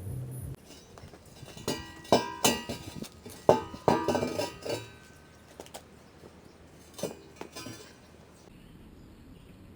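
A run of sharp metal clanks and clinks with a ringing tone, steel being struck or knocked together, bunched between about two and five seconds in, with one more about seven seconds in.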